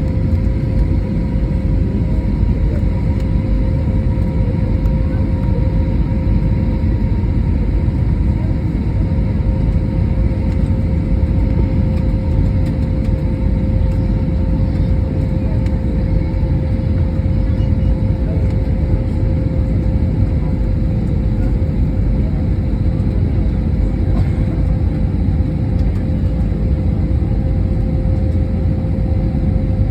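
Airbus A320neo cabin noise in flight: the jet engines and airflow make a steady, loud rumble with a constant hum over it.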